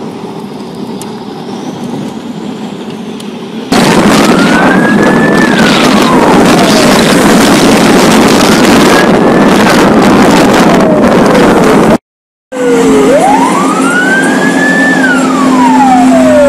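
Military convoy with road and engine noise, then, about four seconds in, a loud siren wailing in slow rising-and-falling sweeps. After a short break near the end it returns with quicker sweeps over a steady low hum.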